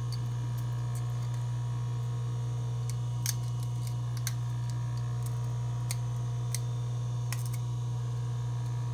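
A knife scraping hardened solder flux off the soldered joints of a metal rapid palatal expander, heard as a few short, sharp scrapes and clicks at irregular intervals over a steady low hum.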